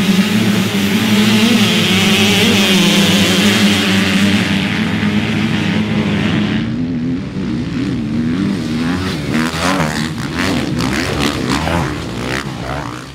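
Motocross dirt bike engines running and revving, steady at first, then with the pitch rising and falling over and over in the second half, fading out near the end.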